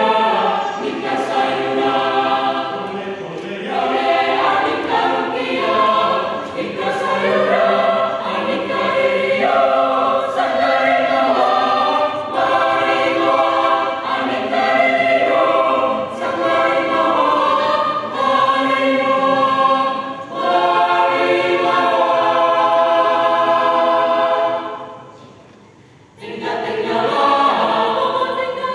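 Mixed choir of men's and women's voices singing together, breaking off for a short rest near the end and then coming back in.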